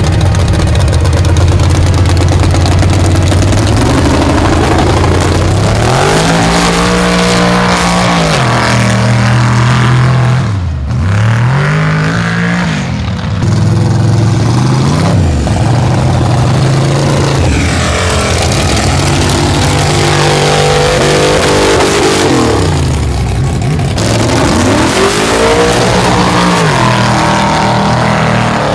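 Lifted pickup mud truck's engine running steadily at first, then revving hard up and down again and again as it churns through the mud pit.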